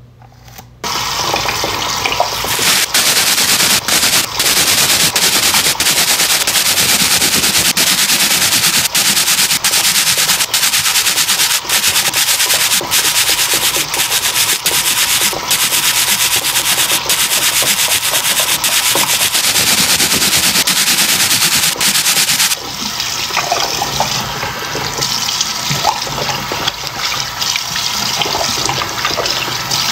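Bathroom sink tap running into the basin: a loud, steady rush of water with a few very brief breaks. About 22 seconds in it drops in level and turns to uneven splashing as water is cupped up to rinse the face.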